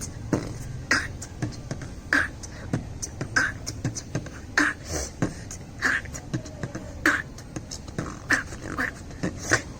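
Beatboxing: mouth-made percussion in a steady beat, a strong sharp hit about every 1.2 seconds with lighter clicks and hisses in between.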